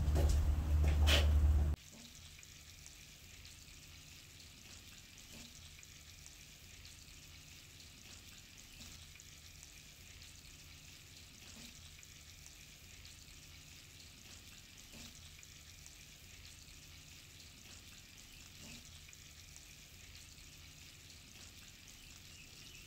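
Chicken pieces frying gently in butter in a long-handled iron frying pan over hearth coals: a faint, steady sizzle with an occasional small pop. A louder low rumble with a few clicks fills the first couple of seconds, then cuts off abruptly.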